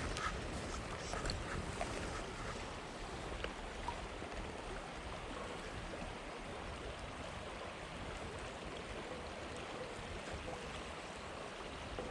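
Small trout stream running: a steady rush of flowing water, with a few faint ticks.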